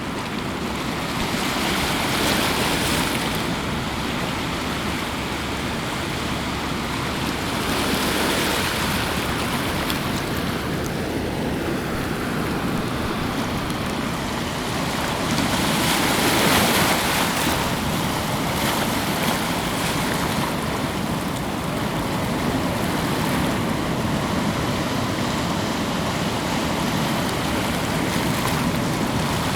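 Ocean surf on a beach: a continuous wash of waves, with a wave breaking louder every several seconds.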